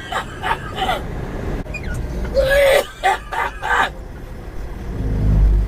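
A person coughing: a run of four or five quick coughs about two and a half seconds in, over a steady low rumble.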